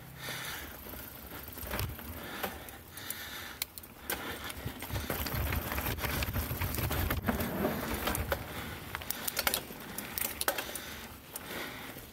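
Specialized Stumpjumper mountain bike ridden fast along a dirt and leaf-litter trail: tyres running over the ground, with chain and frame clattering and rattling over bumps and a heavier low rumble partway through.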